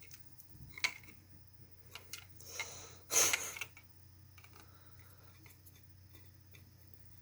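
A tool prying and scraping at a small Bluetooth speaker's grille: a few light clicks, then a short scratchy scrape about three seconds in.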